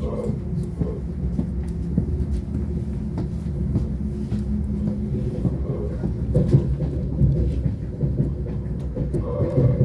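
Lastochka (Siemens Desiro) electric train heard from inside the passenger car: a steady low running rumble with scattered clicks from the wheels, as the train comes into a station.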